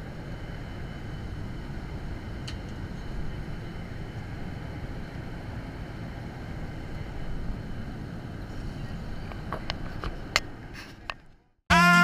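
Airliner cabin noise: a steady low rush of engines and air, with a few light clicks near the end. It cuts out abruptly and music starts just before the end.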